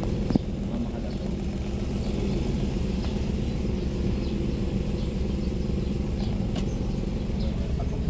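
Toyota Wigo engine idling steadily and smoothly, its misfire cured now that the broken wire to cylinder 3's fuel injector has been replaced. A single sharp click sounds about a third of a second in.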